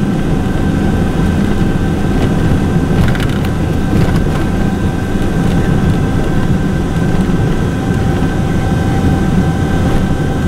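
Steady vehicle cabin noise: a running car's engine and road rumble heard from inside, with a few faint steady tones above it.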